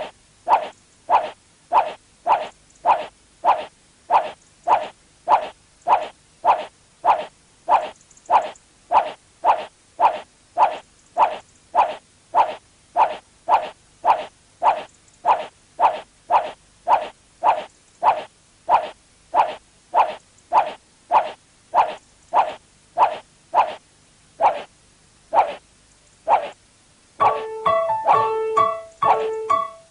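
A short pitched sound effect repeating at an even pace, about one and a half to two times a second, marking the jumps of a person skipping with a rope. It stops about 26 seconds in, and keyboard music starts about a second later.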